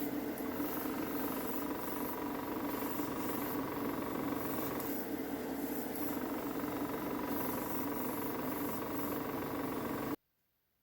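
Airbrushing setup running steadily: the hum of a small electric motor with a spray hiss, as thinned gloss red paint is sprayed in a heavier coat. It cuts off suddenly near the end.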